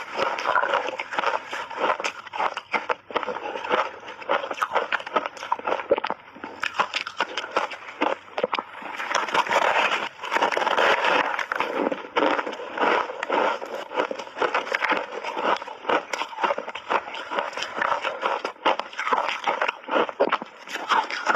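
Crunchy layered ice cake with matcha and milk powder being bitten and chewed: a dense run of irregular cracks and crunches, busiest around the middle.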